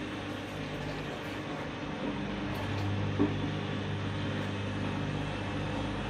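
Front-loading washing machine running with its drum turning slowly on wet laundry: a steady low motor hum, with a single brief knock about three seconds in.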